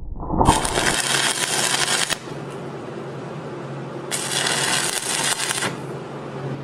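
Stick welding arc at 110 amps DC electrode positive, struck twice by scratching the electrode on a plate: each time a crackling, hissing arc burns for about a second and a half and cuts off suddenly as the rod is pulled back to break it. The second strike comes about two seconds after the first.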